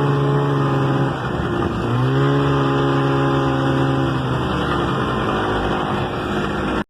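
Snowmobile engine running at a steady pitch with a broad noise of travel under it. It eases off briefly about a second in, picks up again just before two seconds, and becomes less clear in the second half before the sound cuts off abruptly.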